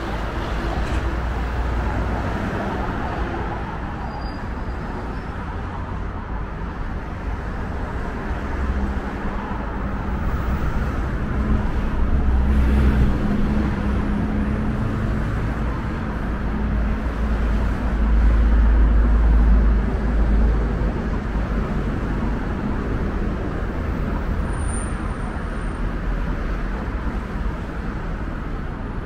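Road traffic on a city street: cars and a city bus drive past with a steady rush of tyres and engines. A heavier engine hum swells and fades through the middle.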